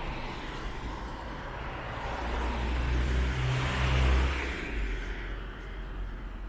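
A motor vehicle passing close by: engine hum and tyre noise swell to a peak about four seconds in, then fade, over a steady wash of street traffic.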